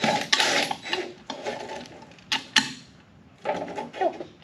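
A handheld trigger power tool runs in short bursts, driving the bolts on a go-kart wheel, with rough clattering strokes in between.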